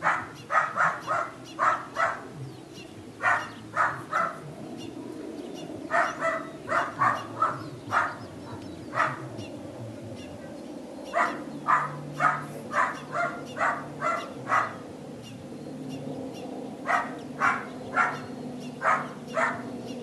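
A dog barking in quick runs of several short barks, about four a second, with pauses of a second or two between runs.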